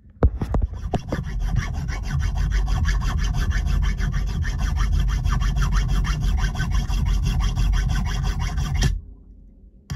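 A file rasping against a small stainless steel key, squaring off its edges: a few sharp knocks at the start, then steady rapid filing that stops abruptly near the end.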